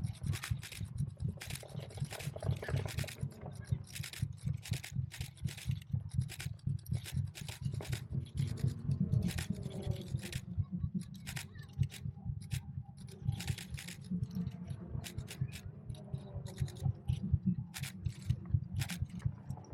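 Camera shutter firing in rapid runs of clicks, several a second, picked up loud by a camera-mounted action camera, over a steady low rumble.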